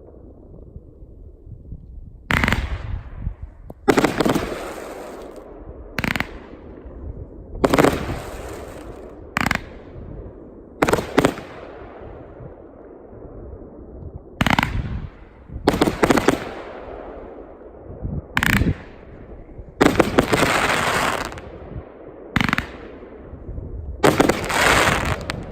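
Multi-shot fireworks cake (a 97-shot battery) firing: about a dozen volleys of rapid-fire shots, each lasting up to a second or so, with short pauses between, each volley trailing off in an echo.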